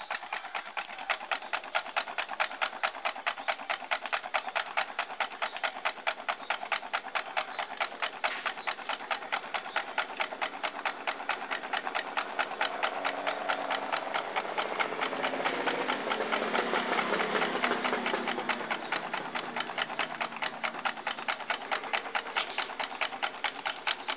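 Homemade Stirling engine with an aluminium soft-drink-can displacer running, its mechanism ticking in a rapid, even rhythm of several clicks a second with each turn of the flywheel.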